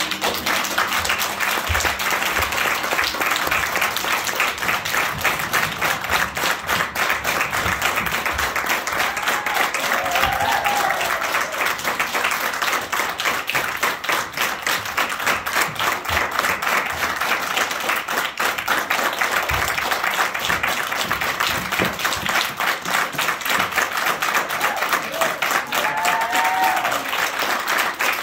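Audience applauding steadily: many people clapping.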